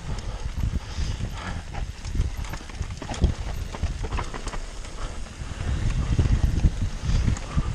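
Mountain bike descending a rough dirt and stony trail: tyres crunching over the ground with irregular clattering knocks and rattles from the bike, under a heavy rumble of wind on the microphone.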